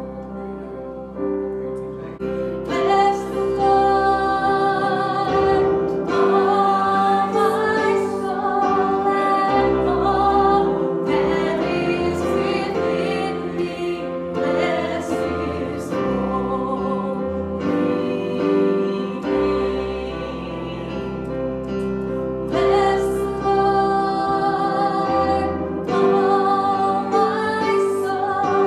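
Music: singing with piano accompaniment.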